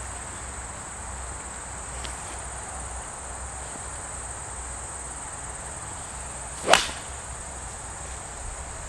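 A single sharp crack of a 7-iron striking a golf ball, about two-thirds of the way through, over a steady high buzz of insects.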